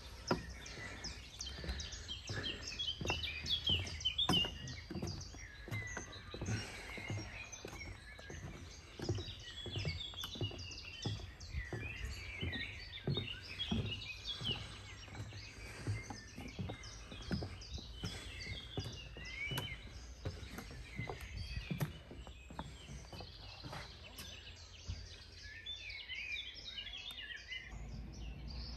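Dense chorus of songbirds chirping and trilling, with a run of short knocks about one or two a second that thins out in the last few seconds.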